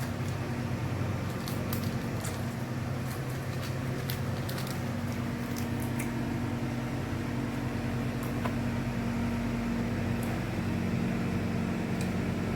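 Steady low mechanical hum of a running room appliance, with scattered faint clicks and crackles over it.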